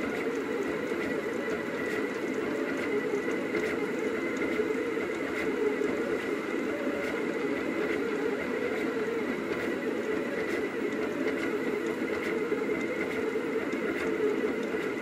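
Rostock delta 3D printer running: its stepper motors whine steadily as the hot end moves over the print.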